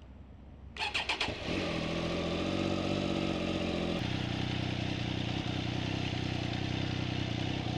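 Triumph Daytona 765 Moto2's three-cylinder engine cranking briefly and catching about a second in, then running at idle, settling to a steady idle about three seconds later.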